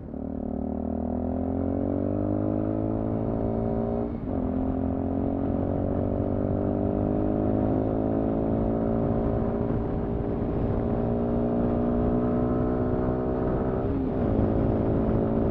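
Sinnis Terrain 125's air-cooled 125cc engine accelerating, its pitch climbing steadily in each gear, with an upshift about four seconds in and another near the end.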